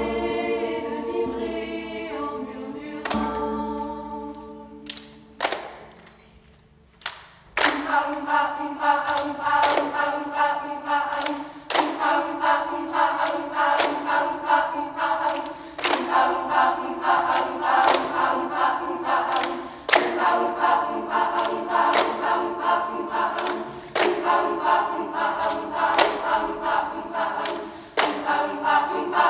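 Choir singing held chords without accompaniment. The singing dies away to almost nothing for a couple of seconds, then comes back in with a sharp percussive hit roughly every second beneath the voices.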